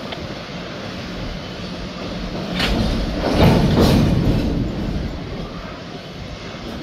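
Freight cars of a CSX manifest train rolling past, wheels clattering over the rails. About halfway through the sound swells louder, with two sharp noises a second apart.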